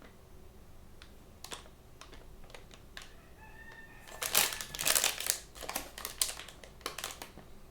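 Plastic blind-bag packaging being handled and torn open. Scattered light clicks, then louder bursts of crinkling about four seconds in and again near the end.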